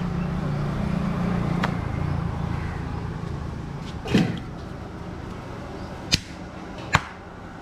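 Thin parotta dough being stretched, flapped and slapped onto an oiled stone counter: a few sharp wet slaps. The loudest, about four seconds in, comes with a quick swish as the dough sheet is whipped through the air; two more slaps come near the end.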